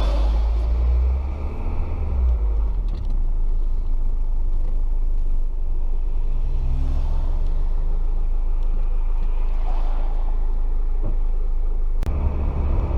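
Rover 75 CDT's 2.0-litre four-cylinder turbodiesel running, heard from inside the car, a steady low rumble that rises in pitch about six seconds in. The engine sits on a newly fitted lower engine mount, and the car runs smoothly without lurching.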